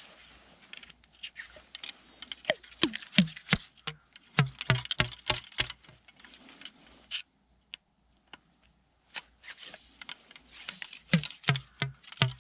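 Wooden ramrod knocking and ramming wads down the barrels of a replica percussion-cap muzzleloading 12-gauge shotgun: bursts of sharp clicks and dull knocks, then a steady tamping of about three knocks a second near the end.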